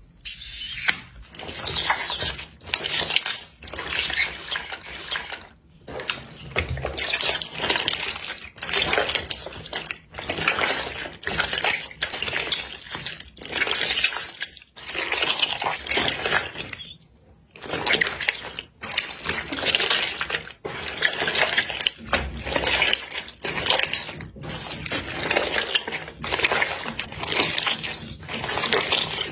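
Hands squeezing and kneading slime: wet squishing with crackling pops, in repeated strokes about once a second, with a few brief pauses.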